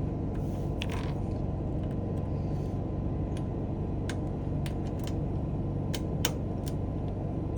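Small metal clicks and scrapes, scattered irregularly, from a lock pick and tension wrench working the pin tumblers of a toolbox drawer lock, over a steady low hum.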